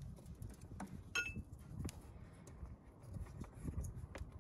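Faint, scattered small clicks and handling noise as hands work a pointed tool at a vehicle wiring-harness connector, over a low rumble.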